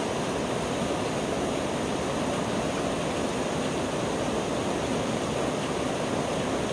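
Rain falling steadily on a street: an even, unbroken hiss.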